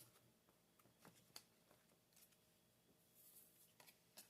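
Near silence, with a few faint, brief clicks and rustles of trading cards being handled.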